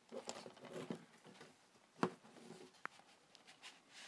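A plastic DVD case being handled and stood up on a table: soft rustling and light taps, with a sharper knock about two seconds in and a small tick shortly after.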